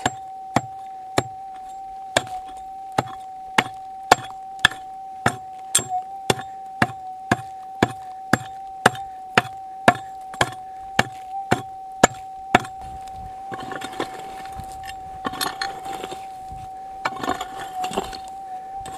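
Steel pick striking hard capstone rock, about two blows a second, then looser scraping and digging in the hole from about thirteen seconds in. A steady high tone runs underneath, the metal detector's threshold hum.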